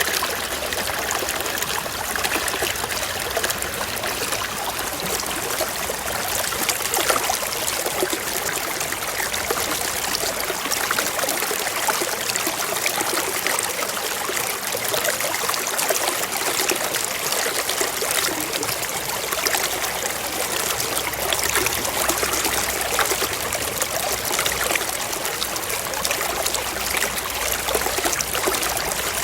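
Small mountain stream flowing and trickling over rocks: a steady, even rush of water with fine splashing detail.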